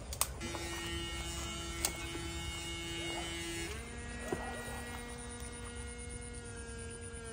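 Steady electric buzz with many overtones, jumping to a higher pitch a little over halfway through, with a few faint knocks.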